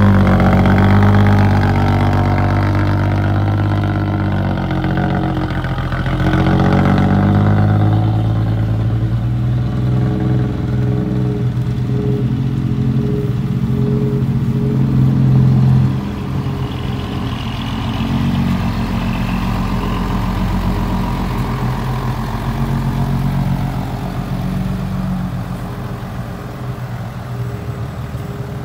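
Diesel dump truck engines running and revving as the trucks pull away under load. About two-thirds of the way through, the sound drops suddenly to a quieter engine note.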